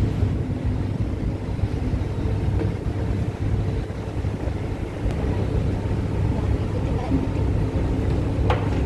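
Steady, deep rumble of a ferry's engines while the ship is underway, heard from on board.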